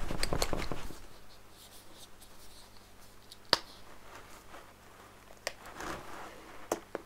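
Handling of a plastic craft-paint bottle: a second of rustling, then a few sharp little clicks, the loudest about halfway through, as the bottle's flip-top cap is opened.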